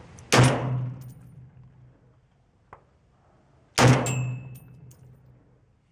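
Two shots from a Crusader Weaponry Broadsword .308 AR-10-type carbine with a 16-inch barrel and a Battle Comp muzzle device, about three and a half seconds apart. Each is a sharp crack with a lot of muzzle blast, trailing off over about a second.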